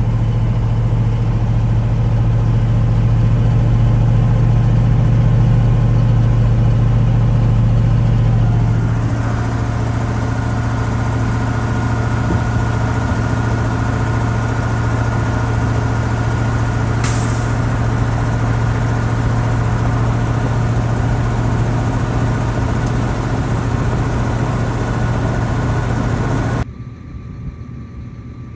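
Case Steiger Quad Track tractor's diesel engine running steadily in low gear up a steep hill, with a deep, even hum. The tone shifts about nine seconds in, and the sound drops off abruptly to a much quieter background near the end.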